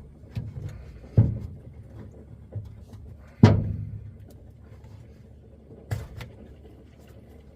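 A few separate thuds and knocks, two louder ones about one and three and a half seconds in, the second with a short ringing tail.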